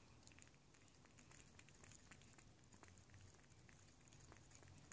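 A cat lapping liquid from a shallow bowl: faint, quick, irregular wet licking clicks, several a second.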